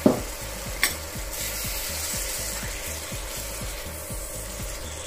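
Hand pepper mill grinding over a wok: a rasping ratchet of short, even strokes, about three or four a second. A sudden knock comes at the very start and a sharp click just under a second in.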